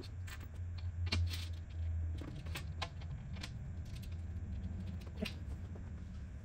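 Small metallic clicks and light knocks from bolts and fittings being handled and set into thin cabinet panels during assembly, scattered irregularly, with a cluster about a second in and another near five seconds, over a steady low hum.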